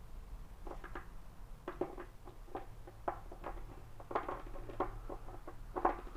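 Small plastic action figures and accessories being picked up and set down on a hard stone countertop: an irregular scatter of light taps and clacks, about a dozen, the loudest near the end.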